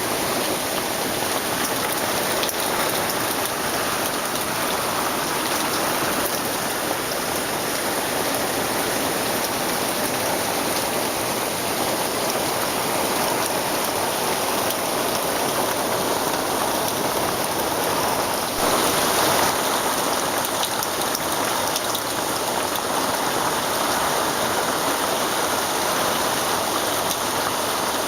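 Heavy tropical-storm downpour from an outer rain band of a hurricane: a steady, loud hiss of rain, swelling briefly about two-thirds of the way through.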